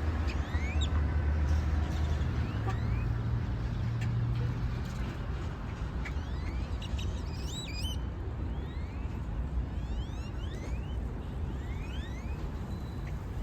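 A flock of birds in flight calling, with many short rising chirps scattered throughout and one louder wavering call about halfway through, over a steady low rumble.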